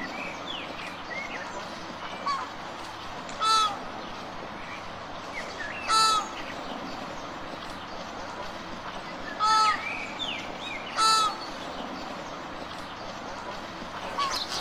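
Flamingos calling: short, loud honks, four of them a few seconds apart, with a fainter one before. Fainter short chirps come in between, over a steady background hiss.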